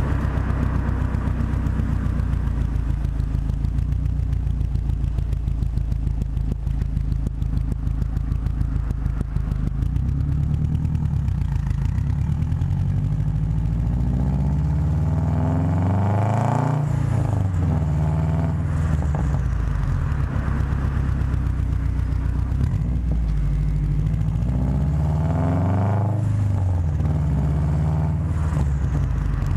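Subaru WRX turbocharged flat-four engine and exhaust running under way, the engine note rising and falling in pitch, most markedly about halfway through and again near the end.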